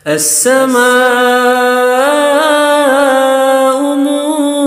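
Unaccompanied Quranic recitation in Arabic by a male reciter: after a quick breath in, he chants the word 'as-samā'u' and draws its vowel out into a long, slowly swaying melodic line.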